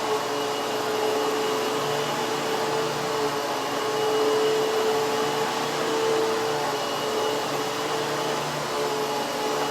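Hoover HushTone 15 commercial upright vacuum cleaner running steadily on its low speed setting, an even whir with a steady hum.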